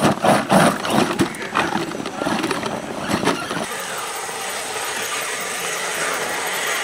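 Radio-controlled scale crawler truck climbing a steep, loose dirt-and-rock slope. For the first few seconds its tyres scrabble and stones knock and clatter in quick, irregular knocks. After that there is a steady hiss of the drivetrain and tyres working in loose dirt.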